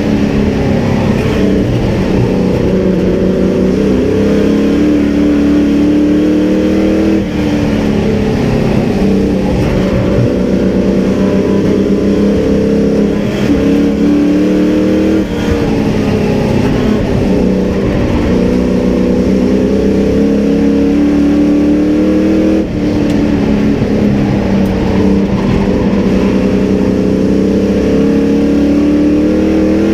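Race truck's engine heard from inside the cab under hard throttle. Its pitch climbs steadily, then drops off sharply as the driver lifts, repeating about every seven to eight seconds.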